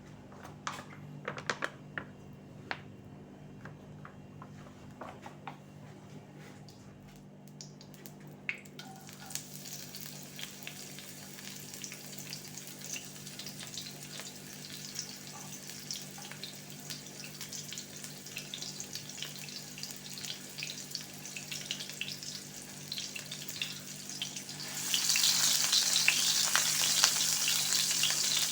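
Scattered clicks and knocks for the first several seconds, then a pan of food frying with a gentle sizzle that grows, turning into a much louder sizzle about three-quarters of the way through as more food goes into the hot pan and is stirred. A steady low hum runs underneath.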